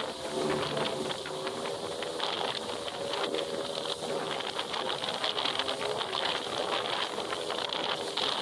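Jet ski engine running at a steady cruising speed, with the steady hiss of water spray off the hull.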